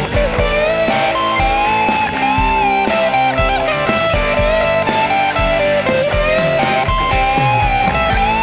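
Background rock music with a lead electric guitar melody over a steady drum beat.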